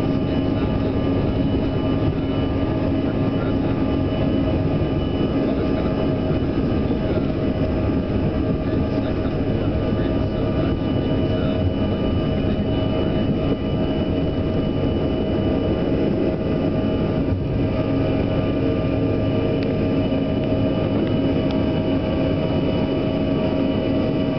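Bombardier CRJ-200 regional jet's rear-mounted turbofan engines at takeoff power, heard from inside the passenger cabin: a steady rushing noise with steady whining tones over it.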